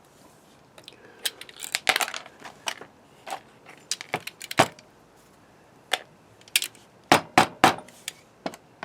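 Irregular sharp clicks and light clinks of small hard parts being handled: a pneumatic stapler taken apart, its broken valve body in pieces. A cluster of louder clicks comes near the end.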